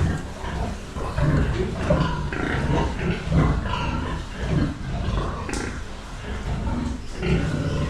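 Pigs grunting in a series of short, irregular grunts.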